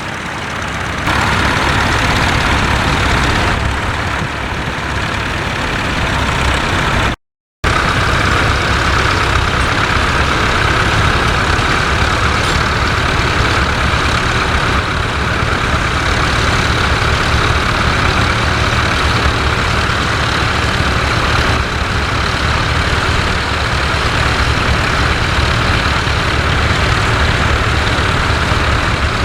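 Vintage tractor engine running steadily with a low, even throb. The sound cuts out completely for a moment about seven seconds in.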